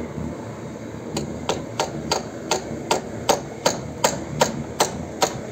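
A roofer's hammer driving a nail into a wooden rafter: a rapid, even run of about a dozen strikes, roughly three a second, starting about a second in.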